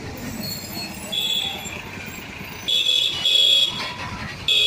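Busy town-street traffic, with several short, shrill vehicle-horn beeps: one about a second in, two close together around three seconds, and one at the end.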